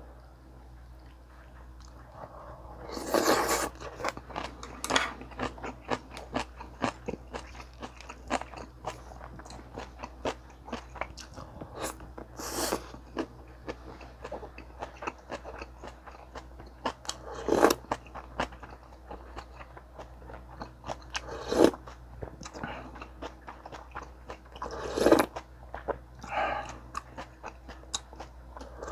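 Close-miked eating: a continual run of small wet chewing clicks, with a louder crunchy bite every few seconds, typical of chewing kimchi and kkakdugi radish kimchi with rice.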